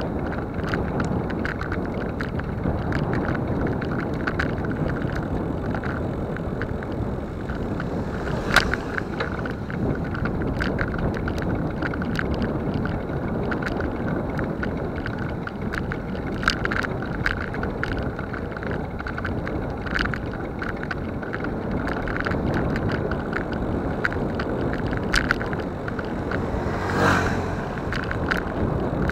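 Wind rushing over the microphone of a camera moving along a road, with scattered clicks and knocks from bumps; a sharp click about eight seconds in and a brief rattle near the end.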